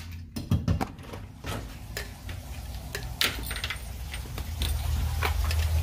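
Scattered light clicks and knocks over a low steady rumble, with a couple of louder knocks about half a second in: a person moving about and handling things.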